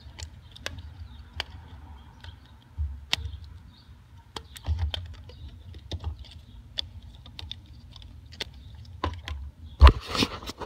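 Scattered light plastic clicks and taps from a car's headlight wiring harness connectors and plastic headlight parts being handled, over a low rumble. A louder knock comes near the end, followed by a short burst of rustling.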